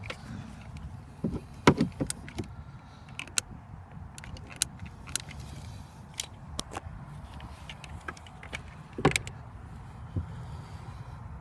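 Handling noise: irregular clicks and knocks over a low rumble, the two loudest knocks about two seconds in and about nine seconds in.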